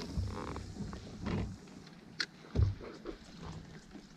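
Irregular knocks and creaks of gear being handled on a fishing kayak. The loudest is a dull thump about two and a half seconds in.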